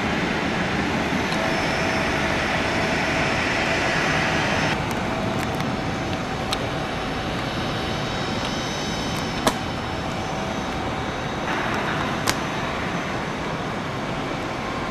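Jet airliner engines, a steady rushing roar with a faint whine, changing abruptly twice. A few sharp clicks are heard, one about 9.5 s in and one about 12 s in.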